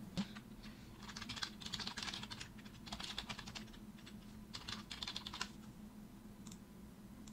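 Typing on a computer keyboard: runs of quick keystrokes that thin out after about five and a half seconds.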